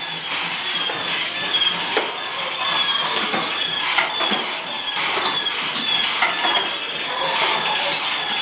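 Sound effects of a laser-shooting boat dark ride: short high beeps two or three times a second over a steady hiss, with sharp clicks here and there.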